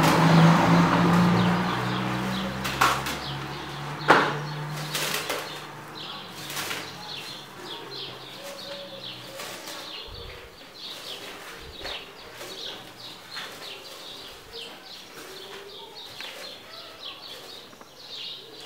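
Plastic cling film being pulled off its roll and stretched over a plastic mixing bowl, crinkling and crackling in many small ticks, to cover pancake batter so it can rest. A sharp click about four seconds in; a steady low hum at the start fades out by then.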